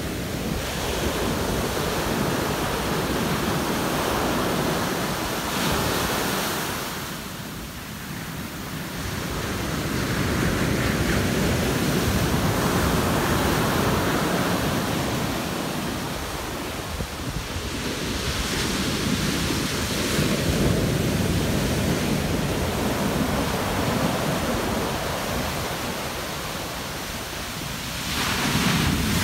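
Pacific surf breaking on a sandy beach, with foam washing up the shore: a continuous rush that swells and eases with each set of waves, dropping off briefly several times.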